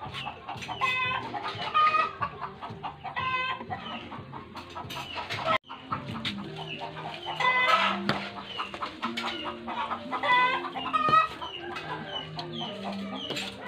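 Chickens clucking, a string of short calls repeated every second or so, with the sound cutting out for a moment about halfway through.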